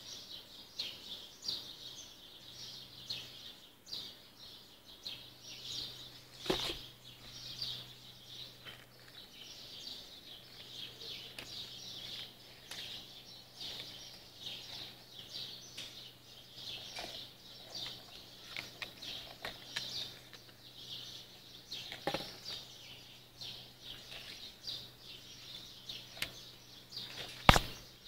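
Many small birds chirping in a dense, unbroken dawn chorus of short high calls, over a steady low hum. A few sharp knocks cut in, the loudest near the end.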